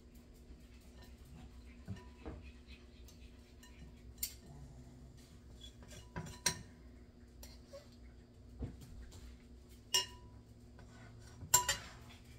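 Metal utensils clinking and scraping against a glass mixing bowl while thick candy mixture is scooped out a spoonful at a time. The sharp clinks come irregularly, the loudest two about ten seconds in and near the end.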